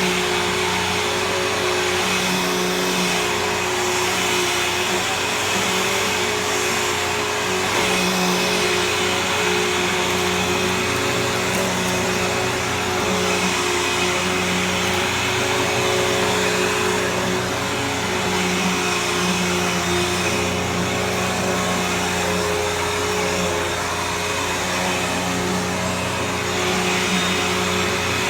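Bissell CleanView Helix Select upright vacuum running steadily as it vacuums carpet, a continuous motor whine and airflow rush with a hum that wavers slightly.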